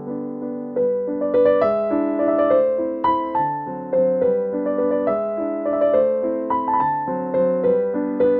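Background piano music: a gentle melody of struck notes over held chords.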